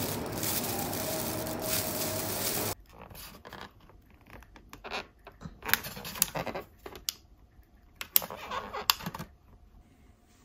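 A steady rushing noise cuts off abruptly about three seconds in. Then a clear plastic clamshell food container and a plastic carrier bag are handled, giving scattered crinkles and sharp clicks that stop shortly before the end.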